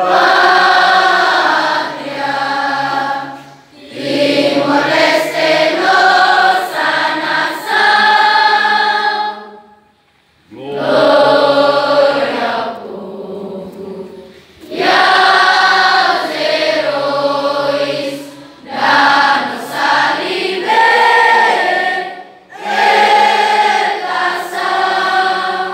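A large group of school students singing together in unison, in phrases of a few seconds with short pauses between lines.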